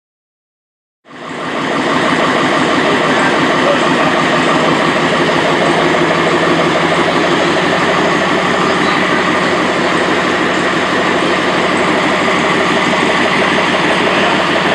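An engine running steadily with a fast, even pulse, starting suddenly about a second in.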